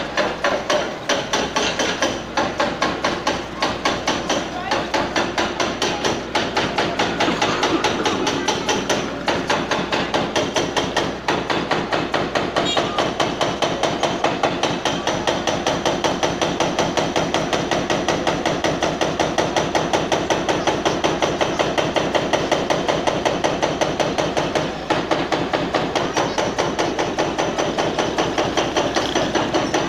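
Hydraulic breaker (chiseler) on a Hitachi wheeled excavator pounding a masonry wall in rapid, steady hammering, several blows a second, with a few brief pauses.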